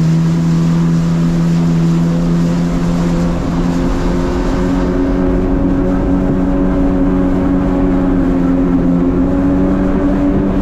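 Jet ski engine running under way over a steady rushing noise. About three seconds in its pitch steps up, then climbs slowly.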